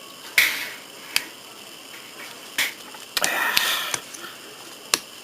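Small plastic model-kit parts being handled on a work surface: a few sharp clicks and taps, the loudest less than half a second in, and a brief rustle of handling in the second half.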